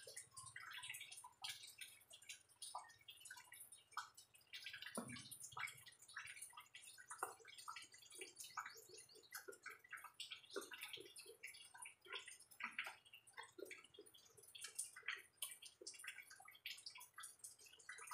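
Faint wet chewing and mouth clicks of someone eating mango slices: many small, irregular smacks and ticks.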